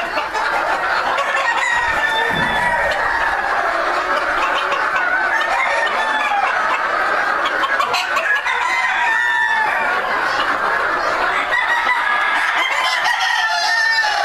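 A flock of White Crested Black Polish chickens clucking and calling over one another in a continuous chorus, with roosters crowing among them.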